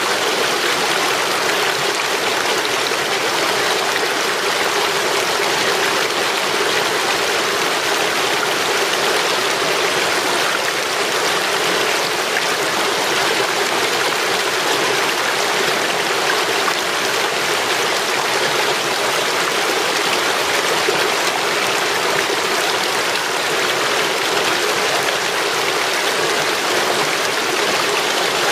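A small mountain stream running over a low cascade of logs and branches: a steady, even rush of water that does not change.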